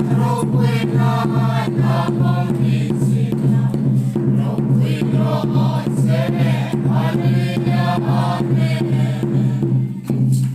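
A congregation singing a hymn together, with a drum beating a steady beat. The singing stops about ten seconds in.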